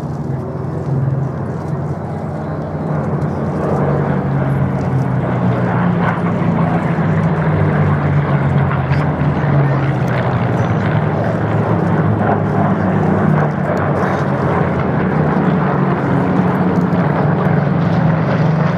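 Spitfires' V12 piston aero engines droning as the fighters fly their display overhead. The sound is steady and grows louder after about four seconds.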